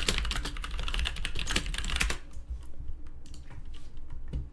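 Fast typing on a computer keyboard, a quick run of key clicks for about two seconds, then thinning out to a few scattered clicks.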